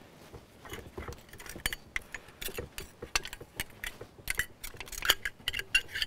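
Irregular light metallic clinks and scrapes as a metal collar and spacer are worked up and off an outboard lower unit's vertical drive shaft, with a few louder clinks near the end.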